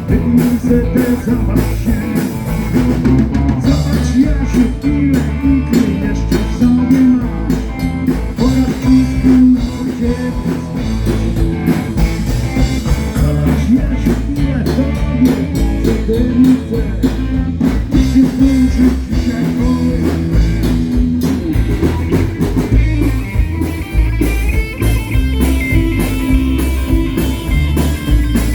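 Live band playing blues-rock, with guitar and drum kit.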